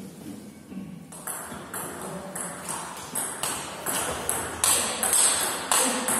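Table tennis rally: the ball clicks sharply off the bats and the table in a quick, even rhythm, about two to three hits a second. The rally starts about a second in and gets louder as it goes.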